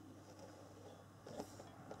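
Near silence: faint room tone, with a few soft handling clicks and rustles about one and a half seconds in.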